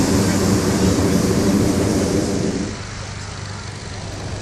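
Hot-air balloon's propane burner firing in one steady blast that cuts off abruptly a little under three seconds in.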